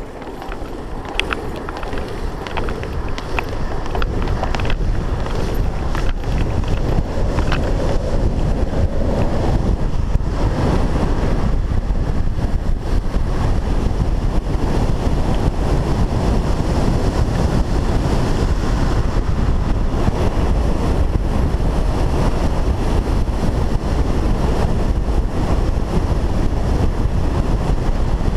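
Wind blasting over the microphone of a longboarder riding downhill fast, mixed with the rumble of longboard wheels on asphalt. It grows louder over the first few seconds as the speed builds, then holds steady.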